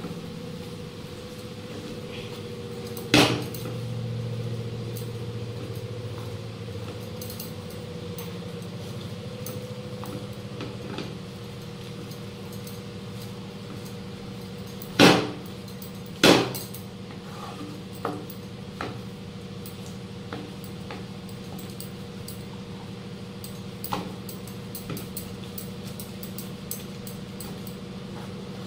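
Wooden spatula stirring and mashing potatoes in a non-stick kadai, scraping the pan and knocking sharply against it: once a few seconds in, twice about a second apart midway, then several lighter taps. A steady low hum runs underneath.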